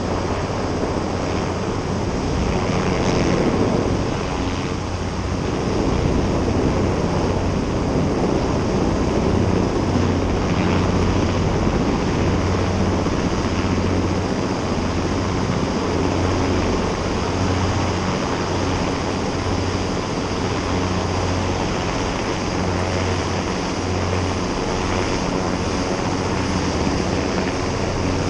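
Sikorsky S-58T helicopter running steadily, a continuous turbine-and-rotor drone with a low hum, heard from the top of the tower.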